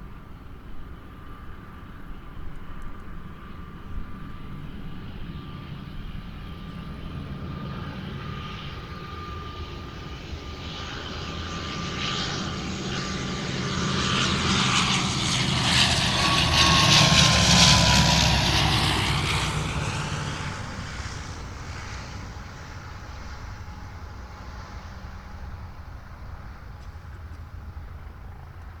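An airplane coming in to land passes low overhead. Its engine noise swells to a peak about 17 seconds in, and a high whine drops in pitch as it goes by, then the noise fades away.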